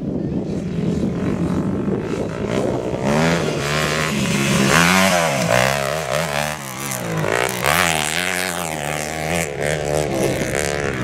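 Motocross dirt bike engine revving, its pitch rising and falling again and again as the throttle is opened and closed through the track, loudest about five seconds in.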